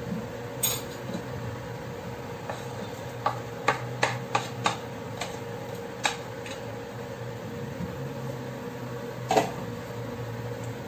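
Onion and tomato pieces tipped off a wooden chopping board into a steel pot of boiling pork broth: sharp knocks and taps as the pieces drop and the board meets the pot. There is a quick run of about five knocks in the middle and one louder knock near the end, over a steady hum.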